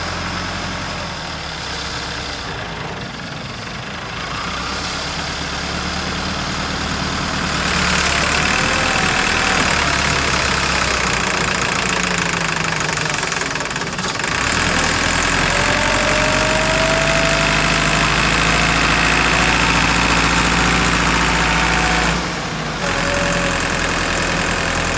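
Tractor's diesel engine working hard as it tows a stuck pickup out of deep sand by a chain, with its tyres churning the sand. The engine gets louder about eight seconds in, dips briefly around halfway, and a higher whine wavers over it in the second half before the sound drops shortly before the end.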